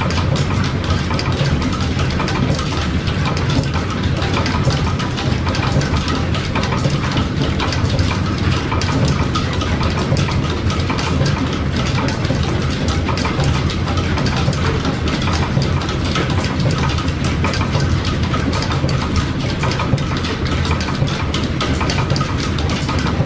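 Overhead line shafting and flat belts of a steam-powered machine shop running: a steady low drone with a dense, fast ticking over it.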